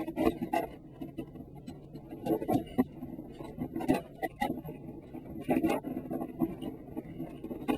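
Irregular plastic clicks and light knocks of a partly disassembled Rubik's Cube being handled and turned over, coming in small clusters every second or two.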